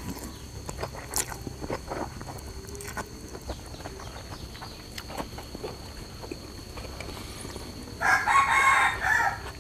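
A rooster crowing once near the end, loud and about a second long, over scattered light clicks.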